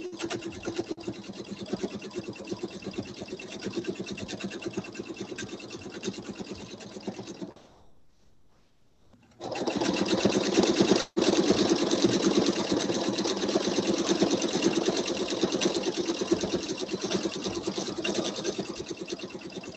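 Pfaff sewing machine stitching rapidly while free-motion quilting through a quilt. It stops for about two seconds some eight seconds in, then starts stitching again, louder, and keeps going.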